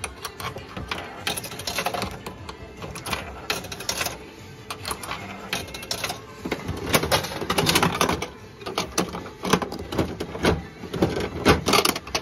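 Gashapon capsule-toy machine being worked by hand: coins going in, then its crank dial turned with rapid clicking and rattling, densest in the second half.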